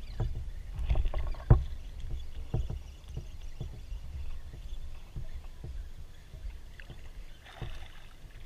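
Small waves lapping and slapping against a small boat's hull, with irregular low knocks, the loudest about one and a half seconds in.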